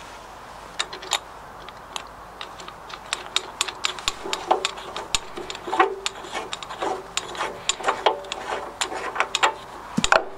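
Irregular metallic clicks, taps and scrapes as the round steel air-cleaner housing on a Lister LR1 diesel's intake elbow is handled and fitted by hand, with the engine stopped. The clicks start about a second in and come thicker and faster from about three seconds on.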